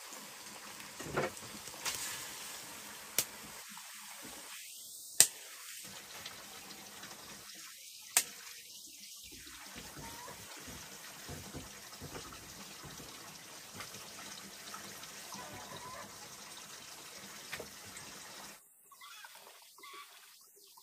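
Hands rummaging through and scooping wet raw pork fat pieces, a steady soft wet shuffling, with a few sharp knocks as pieces land against the metal wok and basin. It stops about three-quarters of the way in.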